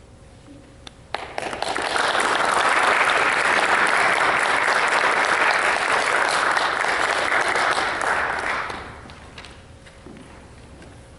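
Audience applauding. The clapping starts about a second in, quickly swells to a steady, dense level, and dies away after about eight seconds.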